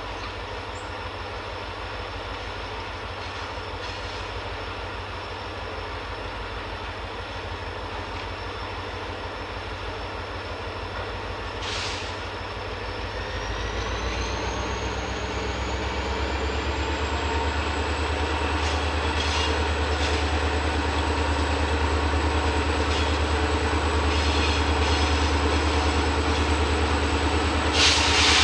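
EMD diesel freight locomotive approaching around a curve at the head of a long train: its engine throbs steadily and grows louder through the second half. A thin high squeal rises in pitch about halfway and then holds, with two short bursts of noise, one near the middle and one near the end.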